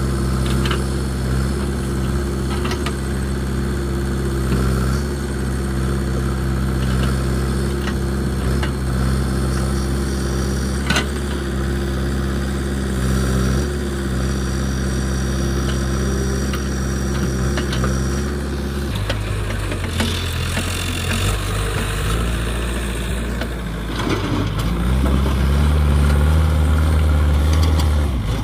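Backhoe loader's diesel engine running steadily, with one sharp metallic clank about a third of the way in. Its note drops lower about two-thirds through, then rises again as the engine revs up near the end.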